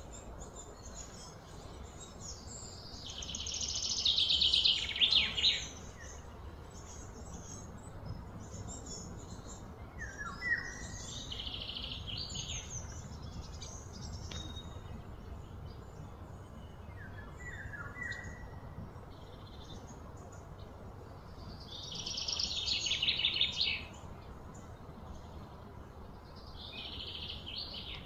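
Birds calling in several bursts of rapid, repeated high chirps, loudest twice, over a steady low background rumble.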